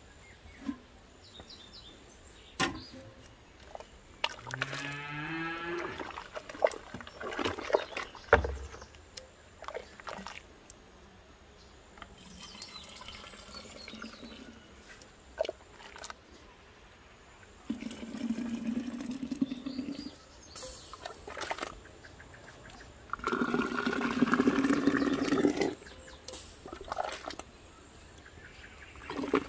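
Hot peach juice ladled through a plastic funnel into a glass jar, pouring twice in the second half, with clinks and knocks of the ladle against the funnel and pot. An animal call with rising pitch sounds about four to six seconds in.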